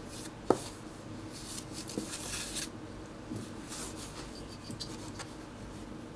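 Siamese cat rolling on its back on a terry towel: scratchy rustling of fur against the cloth in several short spells, with one sharp click about half a second in.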